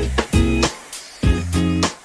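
Background music of strummed guitar chords with a steady beat.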